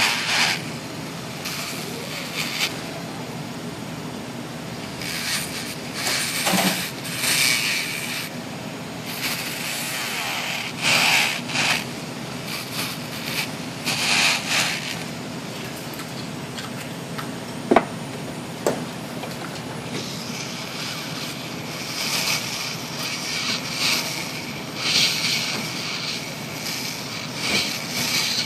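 Nail file rasping on acrylic nails in short, irregular strokes over a steady background hum, with two sharp clicks about a second apart midway.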